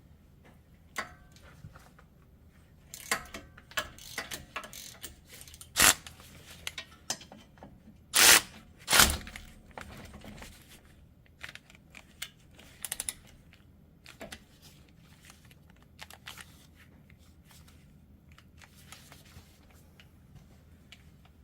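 A hand wrench and socket clicking and clanking against steel while working the front hub bearing bolts loose. The clicks come irregularly, with three louder clanks in the middle.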